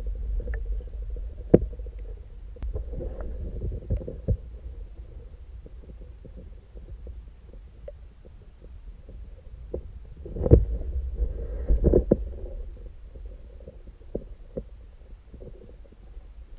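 Muffled underwater sound through a submerged action camera: a steady low rumble with scattered clicks and knocks, two louder knocks past the middle.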